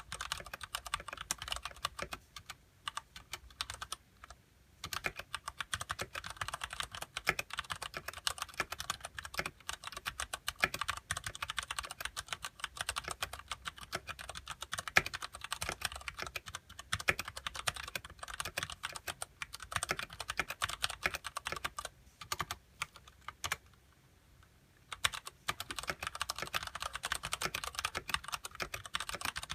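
Fast typing on a Ducky Shine Mini mechanical keyboard with Cherry MX Brown switches and ABS keycaps: a dense run of key clacks. It pauses briefly twice, a few seconds in and again near the end.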